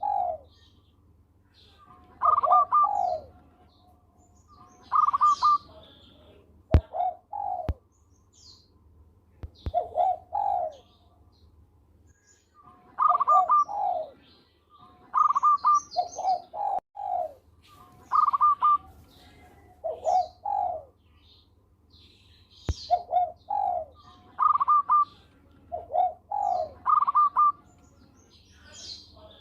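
Zebra dove (perkutut) singing its staccato cooing song, short phrases of quick coos repeating about every two to three seconds. Fainter high chirps and a few sharp clicks come between the phrases.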